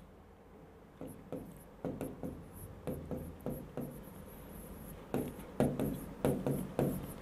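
Stylus tapping and sliding on an interactive touchscreen board while handwriting is written: a string of soft, irregular taps that come closer together in the last couple of seconds.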